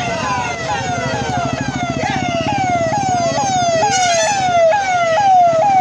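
Electronic siren sounding a rapid repeating falling wail, about two sweeps a second, over a low rumble.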